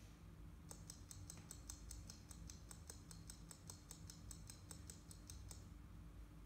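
Small buzzer on an Arduino traffic-light breadboard clicking rapidly and evenly, about six clicks a second, sounding the amber phase as a warning. It starts just under a second in and stops about five seconds later as the light turns red.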